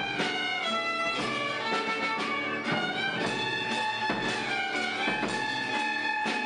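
A youth ensemble plays a melody together on violins, backed by keyboard and a drum kit keeping a steady beat.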